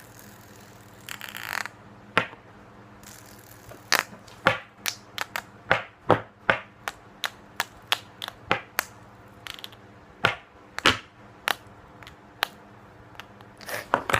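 Fidget spinner being flicked and handled, making a series of sharp, irregular clicks and clacks, dense from about four seconds in, after a short rustle about a second in.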